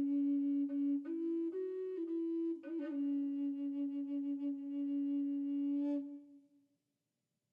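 Music: a slow melody on a flute-like wind instrument, moving through a few notes and then holding one long note that fades out about six seconds in.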